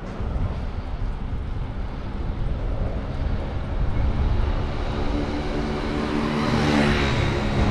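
A motor vehicle approaching with its engine note and tyre noise building up over a steady low rumble, loudest near the end. The rumble is wind on the microphone from riding.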